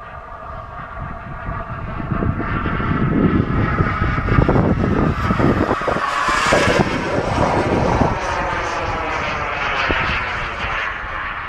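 Radio-controlled model jet flying past: its engine whine with a hiss grows louder, is loudest about six to seven seconds in as the pitch bends down in passing, then eases off.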